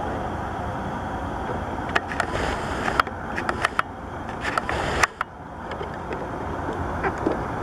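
Steady drone of the Aero Spacelines Super Guppy Turbine's four turboprop engines on approach, overlaid with repeated clicks of an SLR camera shutter firing. The drone drops off suddenly about five seconds in, and a few more shutter clicks follow.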